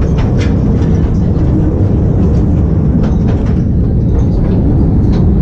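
Ore cars of a mine train rolling along their track through a tunnel: a steady low rumble with occasional sharp clacks.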